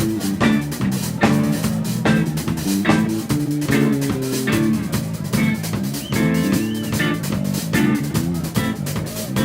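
Live band playing: drum kit hitting a steady beat under electric guitar and bass guitar.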